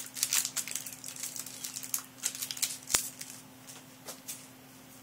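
Yu-Gi-Oh trading cards rustling and clicking as they are handled, flicked through and laid down on a table, with a sharp tap about three seconds in; after that the handling thins to faint occasional rustles.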